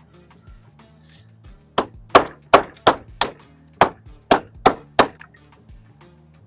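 About nine sharp knocks struck in quick succession, roughly three a second, from a hand tool during fence repair, over steady background music.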